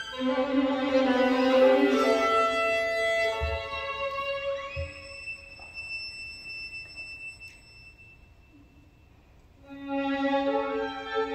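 Solo violin playing unaccompanied, a cadenza-like passage: a run of notes, then a slide up to a high held note that slowly fades into a brief hush. Near the end the violin comes back in with lower, fuller notes.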